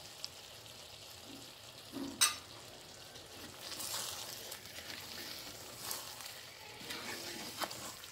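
Stuffed tinda sizzling gently in a clay pot after fresh cream has gone in, while a wooden spatula stirs and scrapes through them. A sharp knock comes about two seconds in, with a few lighter clicks and scrapes after it.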